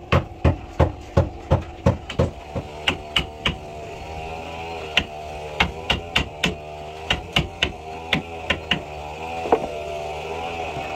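Hammer blows on wood, a quick run of about four knocks a second for the first two seconds, then scattered groups of knocks. A motor runs underneath, its pitch wavering.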